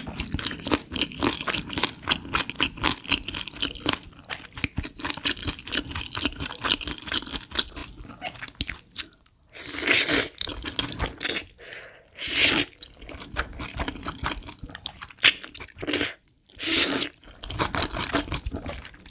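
A person eating chicken and spicy noodles close to the microphone: rapid crisp crunching and chewing clicks through the first half. In the second half come four louder rushing bursts, each about a second long, between quieter chewing.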